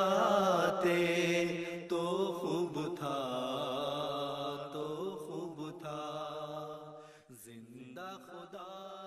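A solo voice singing an Urdu devotional poem (nazm) in a slow, chant-like style, drawing out long held notes. It fades out about seven seconds in.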